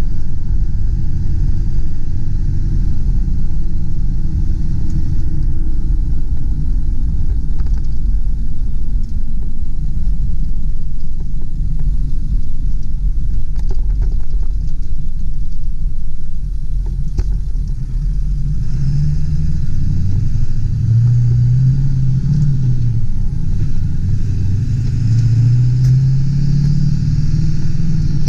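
A 1999 Ford F-250 Super Duty's 7.3-litre V8 turbo diesel running under way, a steady low rumble. In the last third the engine note climbs twice, with a brief drop in between.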